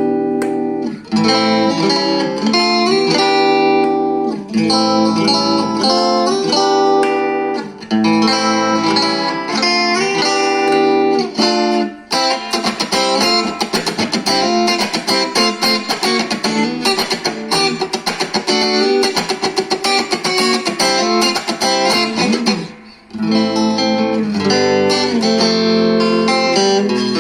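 Squier MM Stratocaster electric guitar played through a Cort MX15R amp: strummed chords held a second or two each, then fast, rapid picking from about twelve seconds in, and held chords again after a brief pause near the end.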